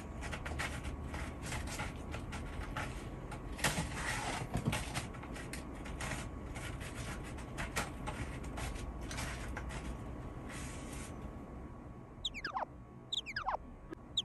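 A cat's claws raking a corrugated cardboard scratching board in quick, repeated scratchy strokes, stopping about eleven seconds in. Near the end, three quick falling whistle-like tones.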